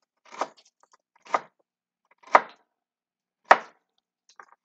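Chef's knife chopping carrot on a wooden cutting board: four chops about a second apart, the last the sharpest, then a light tap near the end.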